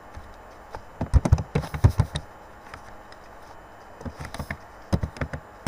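Computer keyboard keys being typed in two quick runs of clicks, one about a second in and another about four seconds in, as a password is entered.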